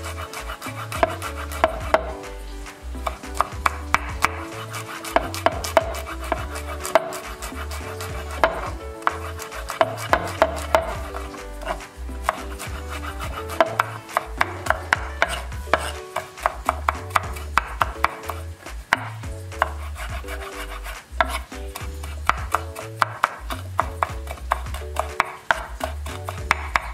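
Chef's knife mincing garlic cloves on a wooden cutting board: quick runs of sharp knife taps on the wood, several a second, broken by short pauses.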